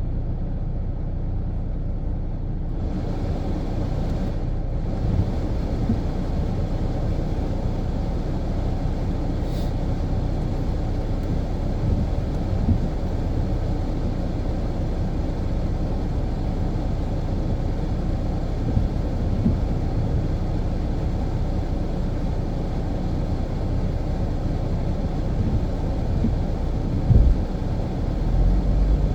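Infiniti Q50 Red Sport 400 (twin-turbo VR30 V6) driving: a steady low rumble of engine and road noise. There is a brief thump near the end, and right at the end the engine note starts to rise as the car accelerates.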